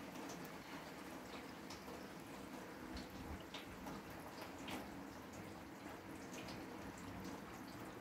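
Faint water dripping in scattered single drops, over a low steady hum.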